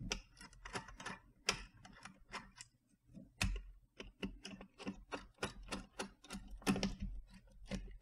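Small screwdriver driving the bottom-cover screws into a Gigabyte Brix S mini PC: a run of quick, uneven light clicks and ticks, several a second.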